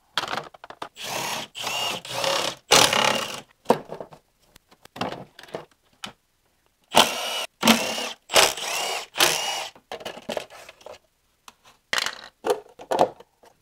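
Plastic engine-bay covers and cowl trim on a BMW E46 being pulled off by hand: a run of irregular plastic scrapes and rubs, with short clicks as pieces come free.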